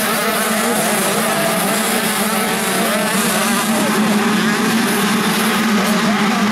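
A pack of motocross bikes racing together, many engines revving up and down over one another with no break.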